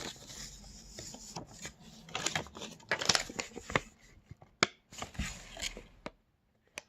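Paper collector's leaflet being handled and unfolded: irregular rustling and crinkling with scattered small clicks and taps.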